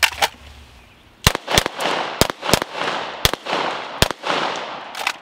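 Six pistol shots: two quick pairs, then two single shots about a second apart. Each shot is followed by a short trailing echo.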